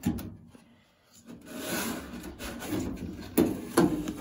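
Plastic lint screen sliding and scraping down into the lint-trap slot on top of a Whirlpool clothes dryer, with two sharp knocks near the end as it seats.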